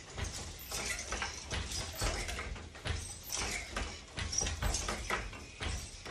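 Wooden floor loom being worked: repeated, irregular wooden knocks and clatter from the beater, shafts and treadles as a boat shuttle is thrown through the shed and the weft is beaten in.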